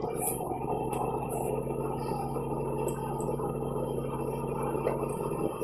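Dodge Viper's V10 engine droning steadily while cruising, over tyre and road noise, heard from inside the cabin. Its steady note drops out about five seconds in.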